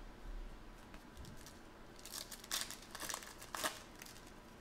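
Foil wrapper of a trading card pack crinkling and tearing as it is ripped open by hand, a cluster of short crackling rips in the second half.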